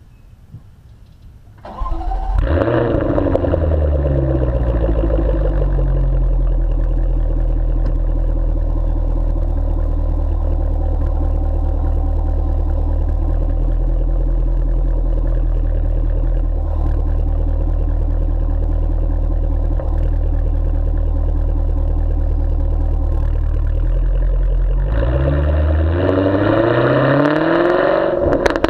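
Jaguar F-Type V8S's supercharged 5.0-litre V8 heard at the tailpipes with the active exhaust valves open. It starts about two seconds in, flares, then settles into a steady idle. Near the end the note rises and gets louder as the car pulls away.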